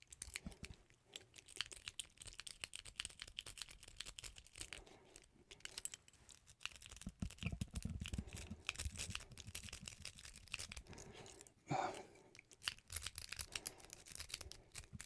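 Lock pick and tension wrench working the pins of a Master Lock padlock: rapid, faint scratchy clicking.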